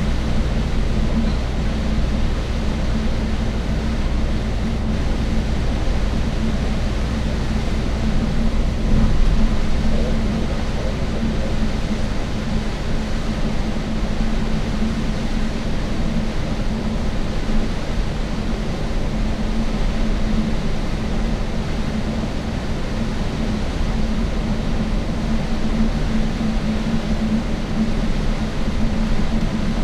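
Cabin noise of a coach bus under way: steady engine and road noise with a low hum.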